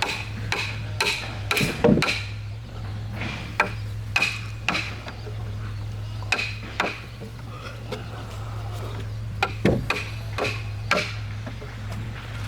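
Irregular light knocks and clinks, a dozen or so at uneven spacing, over a steady low hum.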